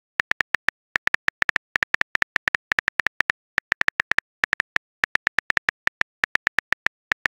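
Simulated phone-keyboard typing clicks: a quick, uneven run of short ticks, several a second, with a few brief pauses.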